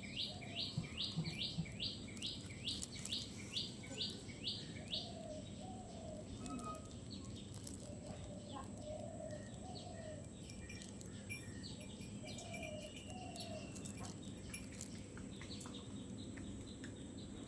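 Birds calling: a rapid run of repeated high notes, about three a second, that stops about five seconds in. Softer, lower notes, often in pairs, follow from another bird.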